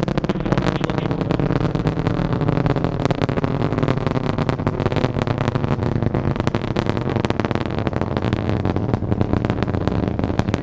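The Delta IV Heavy's three RS-68A engines firing in flight: a steady, dense crackling rumble with no break.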